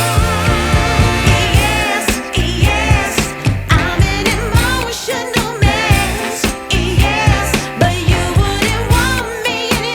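Background music: a wavering, ornamented singing voice over a steady beat.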